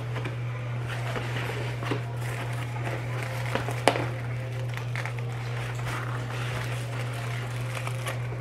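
Paper and takeout packaging being handled: napkins pulled from a cardboard container and a foil-lined paper burger wrapper rustling, with one sharp knock a little before the halfway point.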